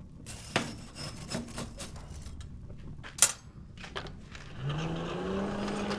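Objects being handled and set down on a hard surface: scattered knocks and clicks with one sharp click about three seconds in, then a short rising tone near the end.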